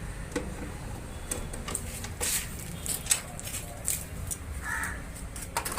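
Scattered light clicks and knocks as the washing machine's control board is handled and lifted out, over a steady low hum.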